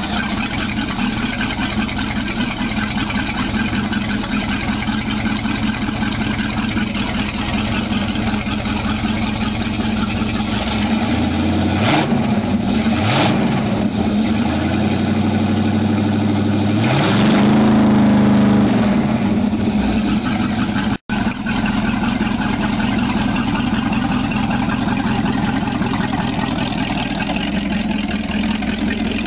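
Pontiac 326 V8 boat engine idling through open transom exhausts, water-cooled from a hose on the trailer. It is blipped twice at the carburetor around the middle, then revved and held higher for about two seconds before settling back to idle. There is a brief cut-out in the sound about two-thirds of the way through.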